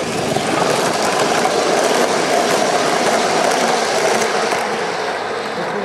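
Gauge 1 model train running past close by on garden-railway track: metal wheels rolling on rail, a steady, loud mechanical noise that swells just after the start.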